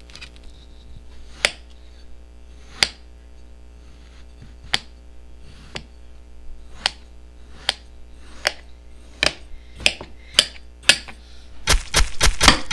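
Sharp, scattered clicks and taps from handling a plastic mould, a spoon and a small object over a plate of sand, about one a second. A quick run of sharper clicks comes near the end.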